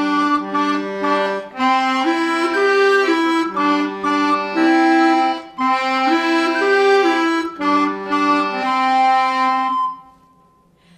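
A piano accordion and a clarinet playing a tune together, the accordion's chords held under the melody. The music stops about ten seconds in.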